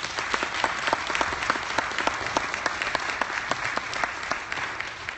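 Audience applauding: many hands clapping at once, a steady dense patter that sets in at the start and begins to fade near the end.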